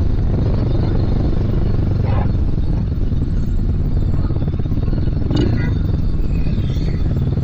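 Motorstar Z250R cafe racer motorcycle engine running steadily while riding, mixed with wind rushing over the microphone.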